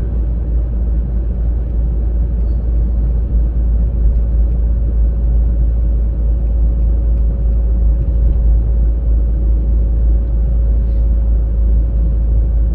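Car driving at steady speed, heard from inside the cabin: a continuous low road and engine rumble with a faint steady whine over it.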